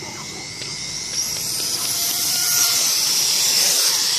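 1/10-scale on-road RC car running at speed: a high-pitched motor whine with tyre hiss, growing louder about a second in and peaking around the middle as the car comes closer.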